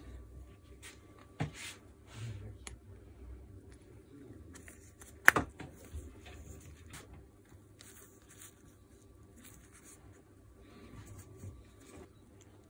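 Quiet rustling and handling noises with a few light clicks, and one sharp click or knock about five seconds in.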